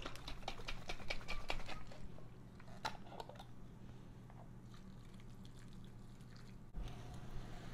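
Quick light clicks and taps of a small glass jar of salad dressing being handled and opened, then a faint, even stretch as the dressing pours into the bowl, over a steady low hum.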